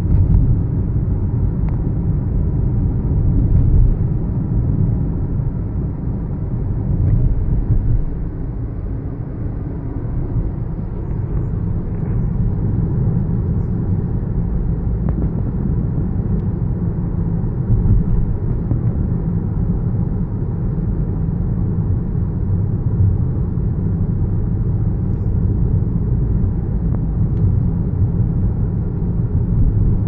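Steady low rumble of a moving car heard from inside the cabin: road and engine noise while driving.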